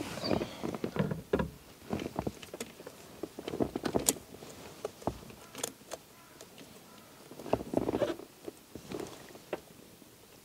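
An MG ZR steering wheel being wiggled and pulled off its splined steering column by hand: scattered clicks and light knocks with rustling between them.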